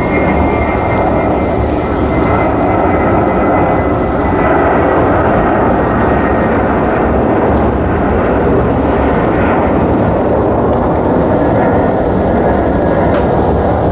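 Airbus A330 twin-engine jetliner climbing out after takeoff, its engines giving a steady loud roar. Over the roar is a faint high whine that sinks slowly in pitch.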